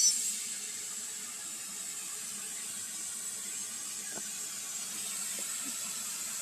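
Portable CNC plasma cutter just after its arc has shut off: a click right at the start, then a faint steady hiss with a thin high whine and a couple of faint ticks.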